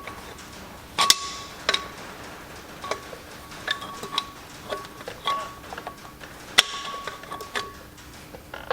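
Steel hand tools clinking and knocking on the tractor's flywheel bolts and lock tabs: irregular sharp metallic taps, each ringing briefly, with two louder knocks about a second in and near the end.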